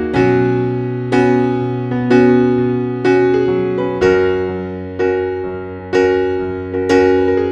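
Background music: electric piano playing sustained chords, struck roughly once a second in a slow, steady rhythm.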